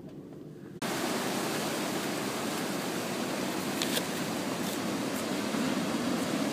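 Steady roar of heavy surf from a big hurricane swell breaking along a rocky shore, coming in abruptly about a second in.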